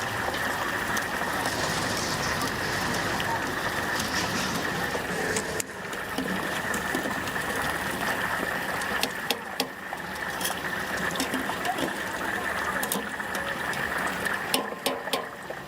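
Stinky tofu deep-frying in hot oil: a steady sizzling hiss, with scattered sharp clicks in the second half.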